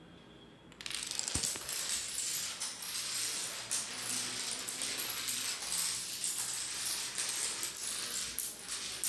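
A long chain of small dominoes toppling one after another on a tile floor, a dense rapid clatter of little clicks that starts about a second in and keeps going at an even pace.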